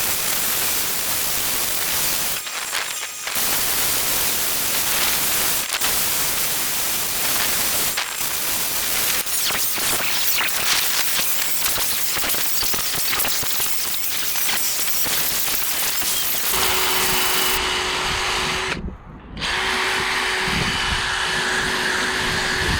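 Handheld power tools grinding and sanding a pine carving: a steady, rough grinding noise that changes near the end to a different tool with a steady whine, cutting out for a moment before it carries on.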